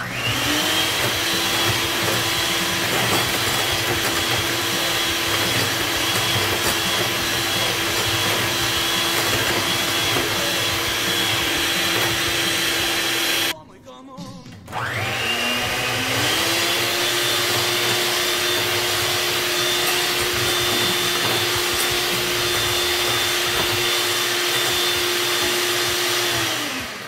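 Electric hand mixer running steadily with a constant hum, its beaters whipping coffee, sugar and water into a thick mousse. It cuts off about halfway through, starts again a second or so later and spins up to speed, then stops just before the end.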